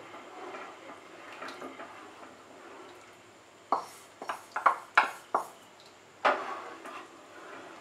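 Custard-powder and milk mixture pouring from a small bowl into a steel pan of hot milk, then a metal spatula knocking and scraping against the pan several times in quick succession as the mixture is stirred in.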